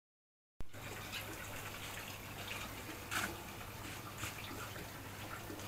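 Steady low sound of water trickling in an aquaponic grow bed with a faint hum, starting after a half second of silence, with two brief rustles of plant roots and clay pebbles being handled.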